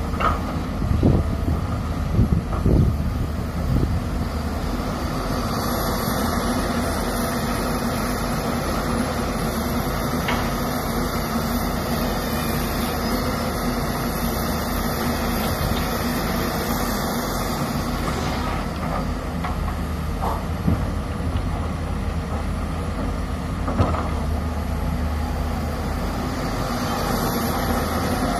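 Hyundai excavator's diesel engine and the dump truck's engine running steadily, with a few thumps in the first few seconds as a bucket of sand drops into the truck's steel bed, and a few more knocks later.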